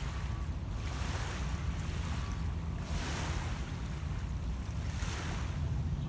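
Small lake waves lapping on a pebble beach, a soft wash about every two seconds, over a steady low rumble of wind on the microphone.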